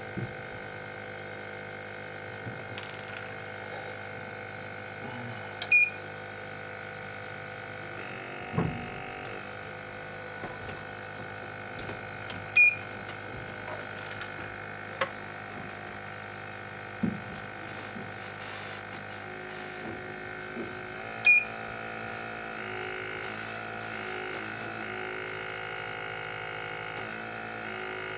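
BGA rework station running during chip reflow: a steady hum from its heater blower and suction, with three short high electronic beeps several seconds apart and a few light knocks.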